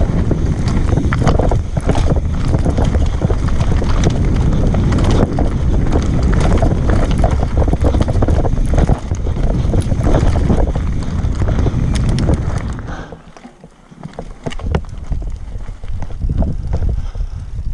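Wind buffeting the microphone while a mountain bike runs over rough trail, with many sharp rattles and knocks from the bike and tyres. The noise drops briefly about three-quarters of the way through.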